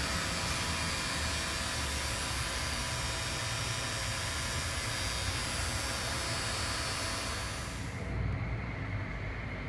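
Steady loud hiss and hum of running blast room machinery, with a few faint steady tones in it. About eight seconds in the high hiss drops away, leaving a lower rumble and hum.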